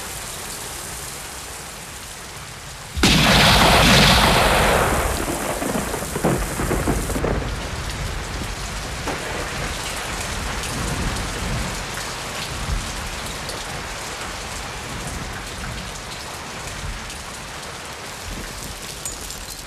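Steady rain falling, with a sudden loud boom about three seconds in that rumbles and fades over the next few seconds.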